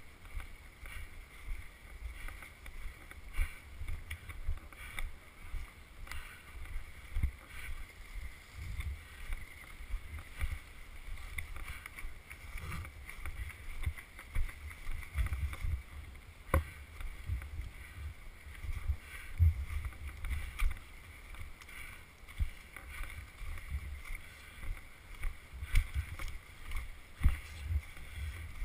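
A person walking on snowy, wet ground, heard through a body-worn GoPro: irregular low thumps of footsteps and rustle of gear, with one sharp click about halfway through.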